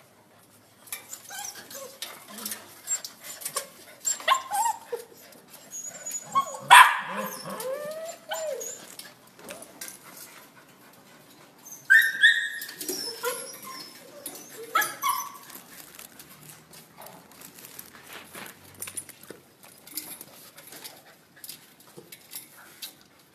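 A litter of Labrador retriever puppies whining and yipping in short bursts, with the loudest cries about 7 seconds in and again about 12 seconds in.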